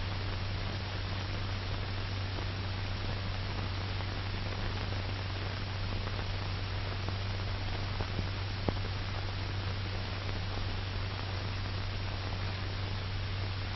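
Steady hiss and low mains-like hum of a 1940 film's optical soundtrack, with no narration or music, and a couple of faint clicks about eight seconds in.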